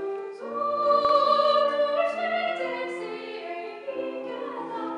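Soprano singing a classical art song in operatic style, accompanied by a Steinway grand piano.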